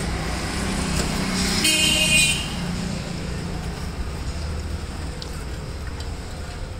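Road traffic going by, with a vehicle's engine running steadily and a short horn toot about two seconds in.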